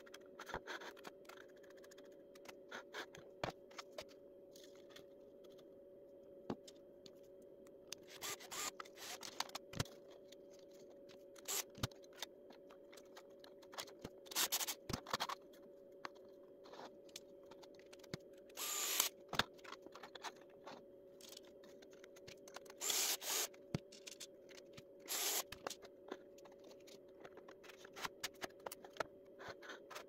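Quiet handling of 3D-printed plastic parts and sheet panels during assembly: scattered clicks and knocks as pieces are set down and fitted, with a handful of short scraping rubs. A steady hum runs underneath.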